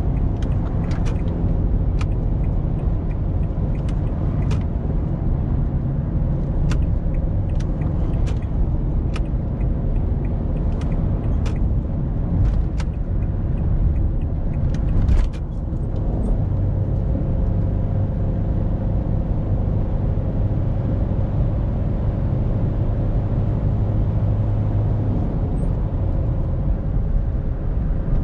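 In-cabin sound of a 2001 Citroën Berlingo's 1.9 turbo-diesel four-cylinder at motorway speed: steady engine drone with road and wind noise. Scattered sharp clicks and knocks come through while it swerves through lane changes, with a cluster of them about fifteen seconds in, and the engine drone is held on a steady note for several seconds after.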